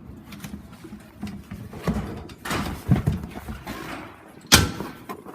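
Cardboard shipping box and packaging being handled: irregular rustling, scraping and knocks, with one sharp knock about four and a half seconds in.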